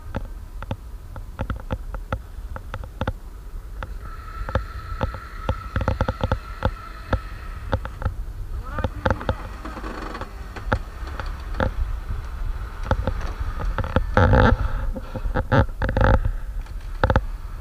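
The electric winch on a UAZ-469 off-roader whines steadily for a few seconds in the middle, then more faintly, as it pulls on its cable. Throughout there are many sharp cracks and knocks under a low rumble, with a cluster of louder bangs near the end.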